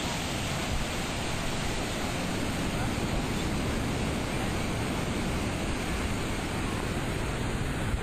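Steady wind buffeting the microphone, with the hiss of surf behind it.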